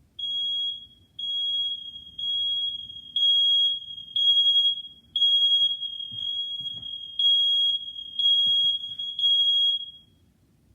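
Household smoke alarm sounding when its test button is pressed: a loud, high-pitched beep repeating about once a second, about ten times, then stopping shortly before the end.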